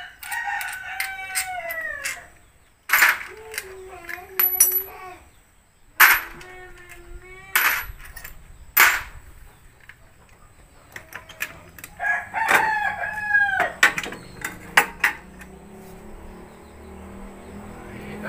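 Roosters crowing, about four long calls that each fall in pitch at the end, some lower than others, with sharp clinks and knocks from hand tools on the scooter's belt-drive cover in between.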